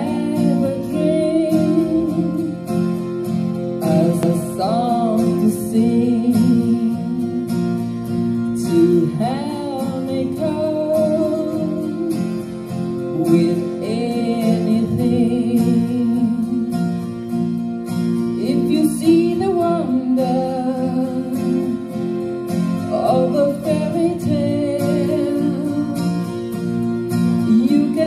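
A woman singing into a handheld microphone over instrumental music.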